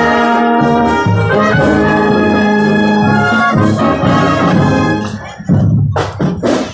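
Marching band brass section playing held chords, with drum strikes near the end.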